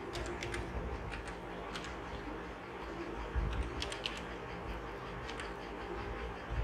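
Computer keyboard keys clicking in irregular, scattered keystrokes while text is typed, over a faint low hum.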